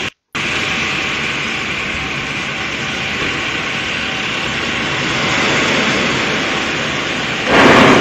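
Steady rushing noise of wind and outdoor ambience. About seven and a half seconds in, a louder rush swells up as the starling flock dives to the ground.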